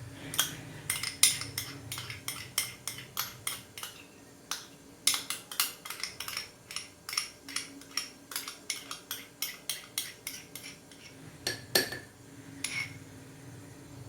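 A metal utensil clinking repeatedly against a ceramic mug, about three clicks a second with short pauses, while pudding ingredients (egg, milk and condensed milk) are worked in the mug.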